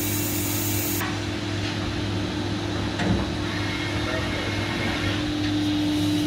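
Steady hum of powered-up machine-shop equipment, with a constant low tone under it. A high hiss cuts off about a second in, and there is a single short click about halfway through.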